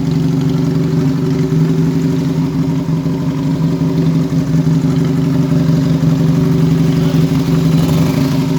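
Benelli Patagonian Eagle 250's air-cooled V-twin engine idling steadily, with no revs.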